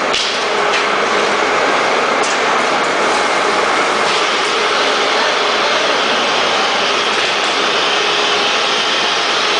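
Automatic powder bag-packing machine and the surrounding factory machinery running: a loud, steady noise with a few faint sharp clicks from the mechanism.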